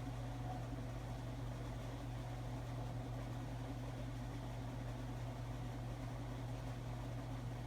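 Steady low mechanical hum over a faint hiss, unchanging throughout, like a running fan or appliance in a small room.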